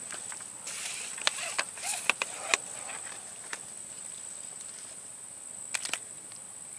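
Steady high-pitched insect trill from the swamp. Rustling and a handful of sharp clicks come in over the first three seconds, and a couple more clicks come near the end.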